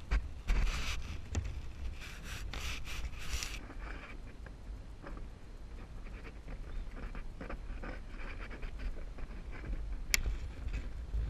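Rustling and scraping of thin telephone wire being pulled and threaded by hand through a BIX punch-down block, busiest in the first few seconds, then softer scattered scrapes and small clicks. One sharp click about ten seconds in.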